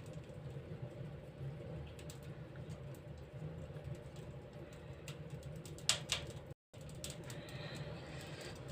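Wood fire crackling in the firebox of a Sibir-12 stove-fireplace with the ash-pit draught door open: scattered sharp crackles over a low steady hum, with a couple of louder pops about six seconds in.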